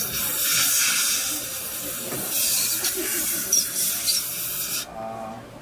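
Dental equipment giving a steady, loud hiss of air or spray during a restoration, cutting off abruptly about five seconds in.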